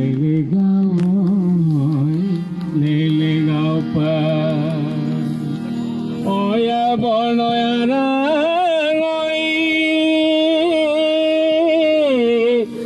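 Music: a steady drone under a melody that slides and wavers in pitch, with heavy ornaments. About six seconds in, the melody moves higher and holds long notes.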